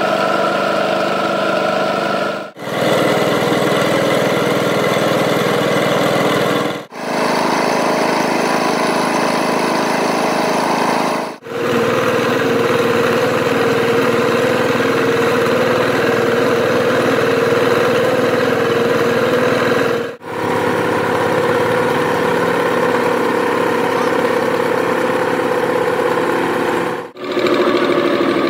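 Workshop machinery running steadily, heard in several clips joined by abrupt cuts; the pitch of its hum changes from one clip to the next.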